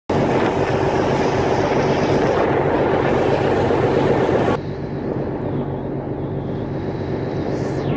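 Steady engine drone of the ferry underfoot mixed with wind rushing over the microphone. The wind rush drops suddenly a little past halfway, leaving the lower engine hum.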